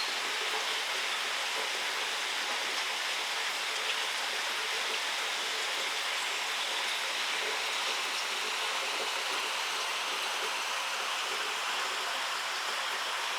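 Steady rain falling in a forest, an even, unbroken hiss.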